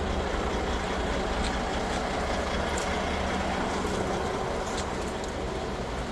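Semi truck's diesel engine idling: a steady, unchanging low drone.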